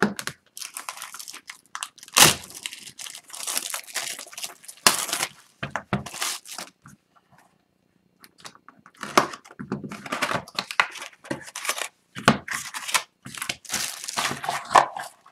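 Plastic shrink-wrap crinkling and tearing as a sealed box of trading cards is slit open with a utility knife, with a pause of about a second midway. Near the end, cardboard flaps and card packs rustle as the box is opened and emptied.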